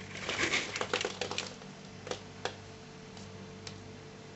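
Close handling noise: a short flurry of scraping, rustling and quick clicks, then a few single light ticks spaced about half a second to a second apart, over a steady low electrical hum.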